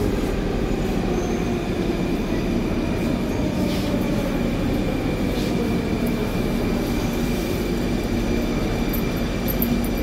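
Moscow metro train running through a tunnel, heard inside the carriage: a steady, loud rumble of wheels on the rails with a motor whine, one tone of which falls slowly over the first several seconds.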